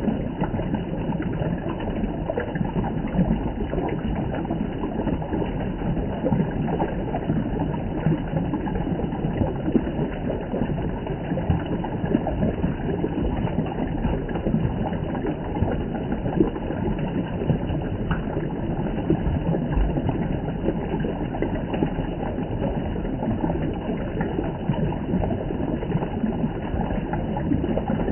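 Spring water flowing and splashing steadily, a continuous dense rush.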